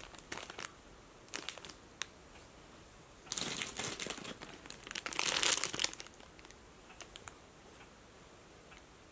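Plastic bread-bun wrapper crinkling as it is handled and set down: a few short crinkles in the first two seconds, then a longer, louder rustle from about three to six seconds in.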